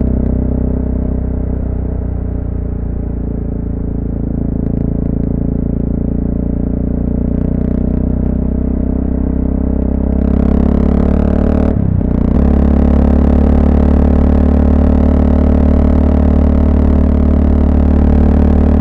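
Honda FMX650 single-cylinder engine running steadily while the motorcycle is ridden, heard from the rider's helmet. From about ten seconds in, wind hiss on the microphone rises. The engine note drops out briefly about twelve seconds in, then runs louder.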